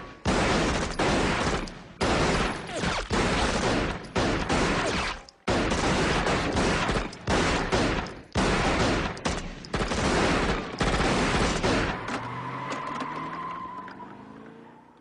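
Long drive-by volley of rapid automatic gunfire, firing in near-continuous runs with short breaks. It dies away about twelve seconds in, with a rising tone as the sound fades out.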